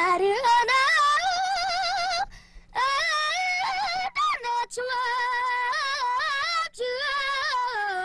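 A boy sings a Tibetan Luhuo folk song unaccompanied in a high, clear voice. The melody wavers and turns in long held phrases, with short breaks for breath about two, four and nearly seven seconds in.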